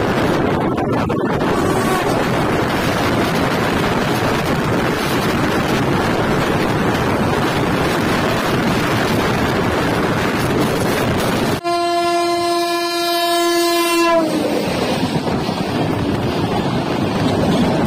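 Loud rushing noise of trains running past each other on parallel tracks, heard from an open coach doorway. About two-thirds of the way through, a locomotive horn sounds one steady blast of about two and a half seconds that drops slightly in pitch as it ends.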